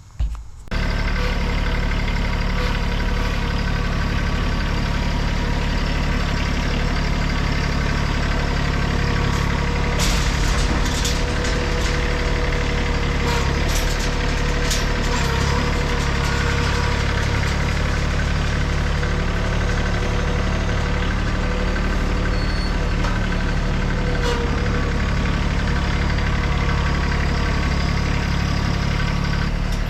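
A vehicle engine running steadily without revving, cutting in just under a second in. A few clicks and rattles come through around the middle.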